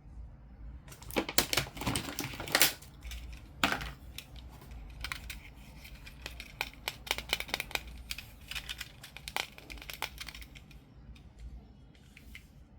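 Plastic toy packaging and toy parts being handled and opened by hand: a quick run of clicks, snaps and crinkles, busiest in the first few seconds and thinning out near the end.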